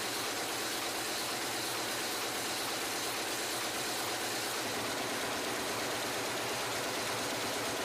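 Power loom running steadily as it weaves wool tartan cloth, a continuous, even mechanical noise.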